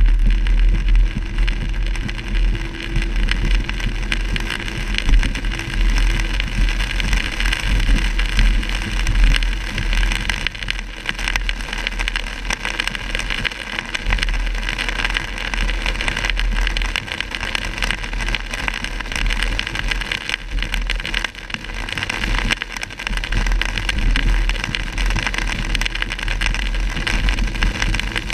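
Heavy rain drumming on a car's roof and windshield, heard from inside the cabin while driving, with tyres hissing on the wet road over a steady low rumble.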